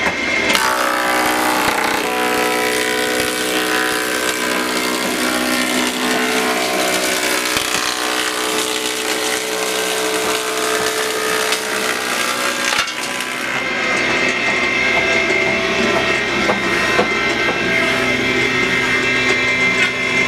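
Wood thickness planer cutting a board: a loud, dense cutting noise begins about half a second in as the board enters the cutterhead and stops abruptly about 13 seconds in as it clears, after which the planer runs on unloaded with a steadier hum.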